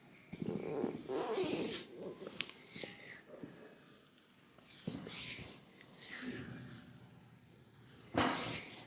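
Hands massaging an oiled leg: irregular rubbing and squishing of skin in uneven strokes, with a couple of faint sharp clicks.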